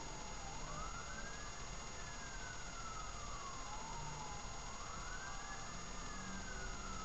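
Faint wail of an emergency vehicle's siren, its pitch rising and falling slowly, about one sweep every three to four seconds.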